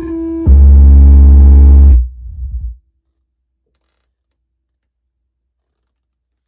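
Synthesized Macintosh 'death chime' played on a MIDI keyboard: a held mid-pitched note, then about half a second in a very loud, deep bass chord that holds for about a second and a half and dies away, followed by silence.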